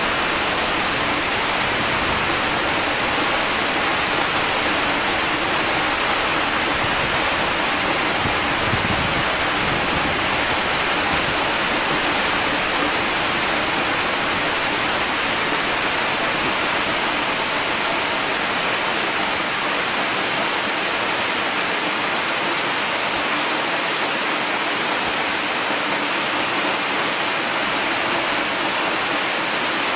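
Large waterfall: water falling and rushing in an unbroken, steady hiss, heavier in the highs than in the lows.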